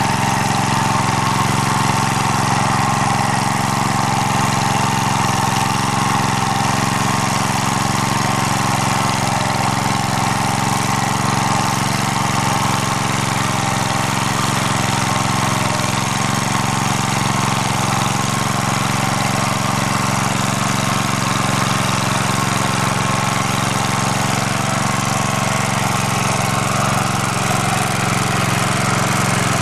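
MD3 walk-behind tractor's engine running steadily, driving its rotary tiller through garden soil in first gear.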